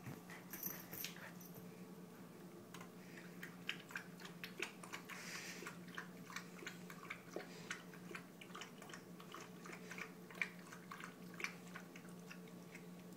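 German Shepherd puppy lapping from a bowl: a run of faint, quick, irregular clicks, heard over a steady low hum.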